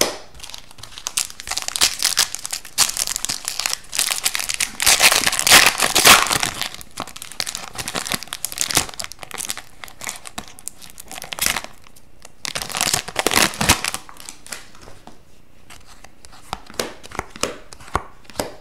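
Foil wrapper of an Upper Deck 2022-23 Series Two hockey card pack crinkling as it is torn open and handled, loudest about a quarter of the way in and again past the middle. Near the end, short light clicks of cards being flipped through.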